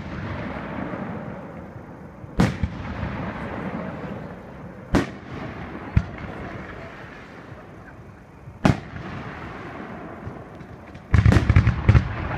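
Aerial firework shells bursting: four separate sharp booms a few seconds apart, each trailing off in a rolling rumble. About a second before the end, a rapid barrage of many overlapping bangs and crackles begins.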